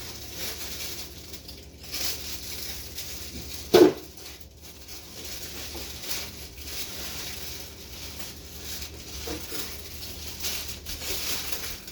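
Household items being rummaged through and handled, with scattered light taps and rustles and one loud knock about four seconds in.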